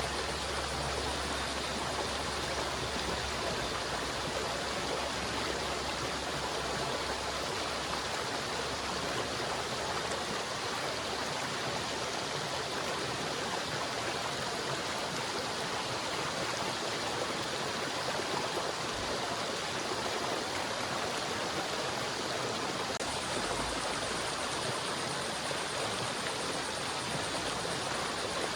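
River water flowing steadily, a continuous even rush of water.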